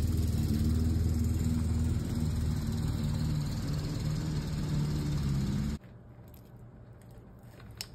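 An engine running steadily at idle, with a low even hum, that stops abruptly about six seconds in.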